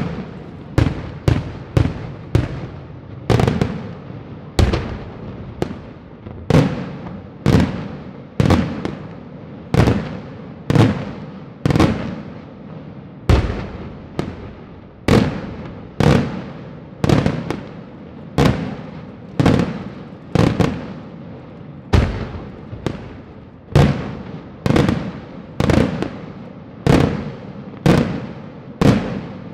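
Daytime fireworks display: aerial shells bursting in a steady run of loud bangs, several close together at first, then about one a second, each trailing off in a fading echo.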